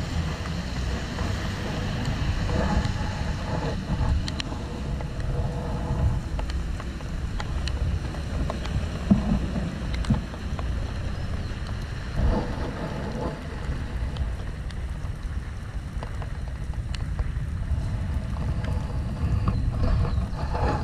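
Wind buffeting the microphone in a steady low rumble, over a hiss of rain and cars on a wet road.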